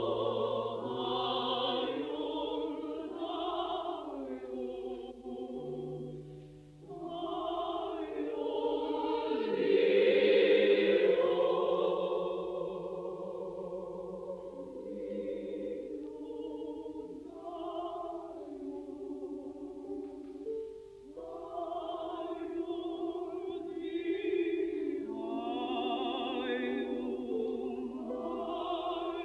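A women's choir singing a slow choral piece in sustained chords, with low accompanying notes underneath, swelling to its loudest about ten seconds in.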